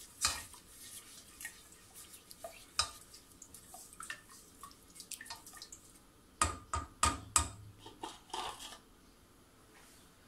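Utensil stirring sugar into water in a stainless steel pot, with light clinks and scrapes against the metal sides and a run of louder knocks a little past halfway; the stirring stops shortly before the end.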